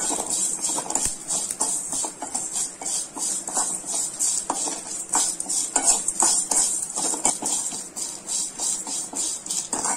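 Steel spatula stirring and scraping roasted dal, curry leaves and chillies around a stone-coated kadai, with quick repeated scrapes and taps against the pan over a steady high hiss of hot-oil sizzle, the stove just switched off.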